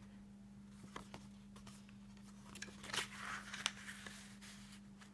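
Quiet paper handling: a card tag in a handmade paper journal being moved and tucked back against its page, with a few light clicks and a soft rustle around the middle, over a steady low hum.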